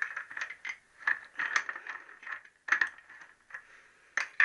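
Irregular metallic clicks and clinks of a socket and spanner working the slack nut off the kickstart ratchet of a Triumph T120R gearbox.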